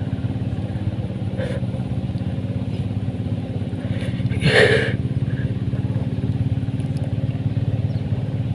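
A small engine running steadily, an even low drone. About halfway through a brief, louder sound rises over it for under half a second.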